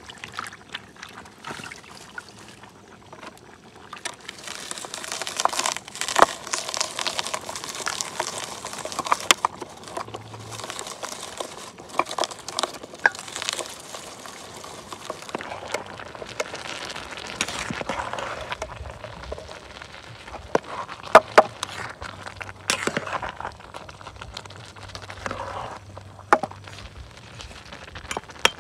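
Plastic hand-held vegetable chopper worked over garlic, chilies and coriander: irregular plastic clicks and crunching, with rustling in between.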